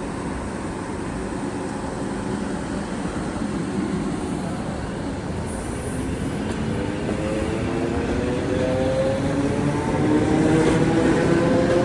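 ED4M electric multiple unit pulling away from the station: a steady rumble of the train, then from about halfway in its traction motors start a whine that rises slowly in pitch and grows louder as it gathers speed.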